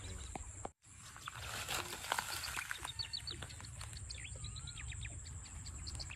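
Birds chirping in quick short calls that sweep downward, thickest in the middle, over a steady high insect buzz and a low rumble of wind on the microphone. Everything drops out briefly under a second in, then resumes.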